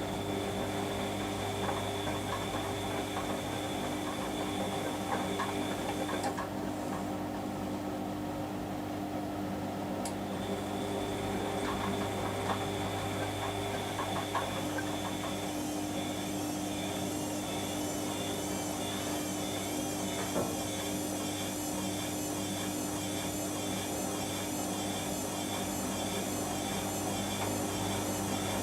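Washing machine running, a steady motor hum with a high whine that drops out for a few seconds and then comes back, wavering in pitch about once a second from about halfway through, with a few faint ticks.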